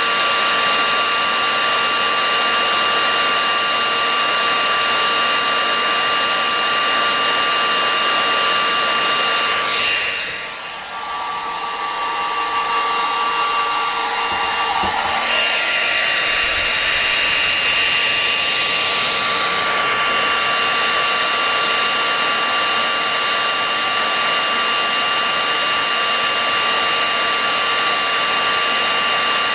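Hot air rework gun blowing steadily, a rushing air noise with a steady high fan whine. About ten seconds in it drops off briefly, then climbs back to full flow over the next few seconds.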